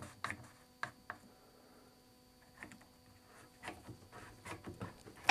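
Jorgensen trigger clamp being set and tightened by hand: scattered plastic-and-metal clicks and knocks as the bar slides and the trigger is squeezed, a quicker run of clicks near the end and one sharper click at the end.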